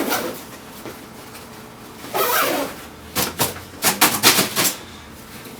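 A nylon tactical backpack being handled: a short swish about two seconds in, then a quick run of sharp rasps and clicks lasting about a second and a half.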